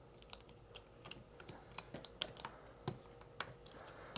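Light plastic clicks and taps at irregular intervals, about a dozen, as plastic separators are pressed back into place in a Victron Lynx Distributor housing.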